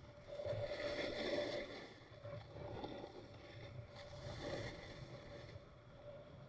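Skis swishing and scraping across snow through a series of turns: three swelling swooshes, the first and loudest near the start, the others in the middle, then a quieter glide.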